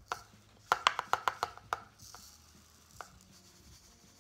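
Ground walnut shells being poured from a mug through a red plastic funnel: a quick run of sharp taps and rattles about a second in, then a short hiss of the shells pouring, and one more tap near the end.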